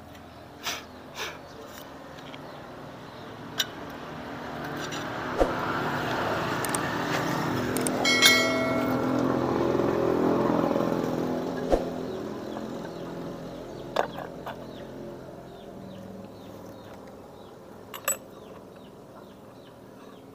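A road vehicle passes: its noise swells over several seconds to a peak near the middle and then fades away. Sharp metallic clinks of scooter CVT clutch parts being handled come now and then, and one of them, about a third of the way in, rings briefly like struck metal.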